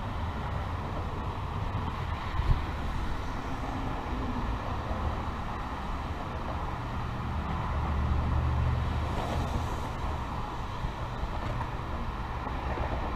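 Steady road traffic noise, with a vehicle passing and swelling louder about eight seconds in. A single sharp knock sounds about two and a half seconds in.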